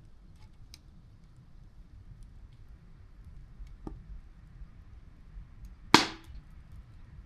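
Wood fire crackling: faint scattered snaps, a sharper one about four seconds in, and one loud pop about six seconds in.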